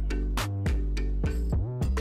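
Background music: drum hits over held bass notes.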